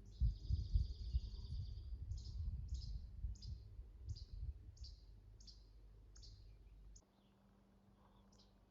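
A songbird singing: a high buzzy trill lasting about two seconds, then a series of short, quick down-slurred notes at about two a second. A low rumble on the microphone runs beneath it and cuts off abruptly after about seven seconds.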